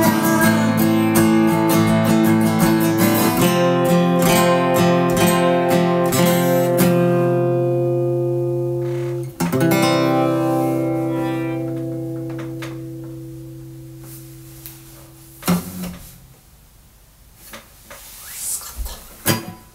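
Acoustic guitar playing the closing bars of a song. A final chord is struck about nine seconds in and left to ring, fading over several seconds, until a knock stops it; a few small handling clicks follow.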